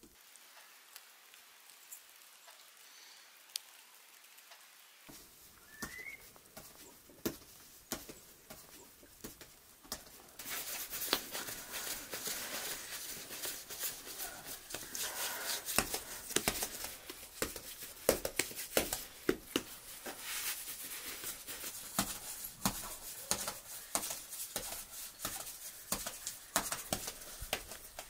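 Faint scattered ticks and one short rising chirp, then from about ten seconds in, hands rounding and pressing bread dough on a floured board: a steady rubbing with many light knocks.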